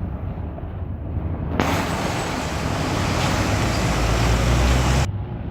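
Road traffic: a heavy vehicle's engine rumble with a loud hiss of road and wind noise that starts suddenly about one and a half seconds in and cuts off about five seconds in. The rumble grows louder toward the end of the hiss. No horn sounds.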